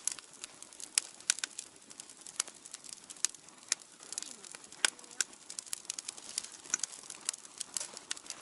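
Wood fire burning in a fire grill, crackling with irregular sharp pops and snaps several times a second over a soft hiss.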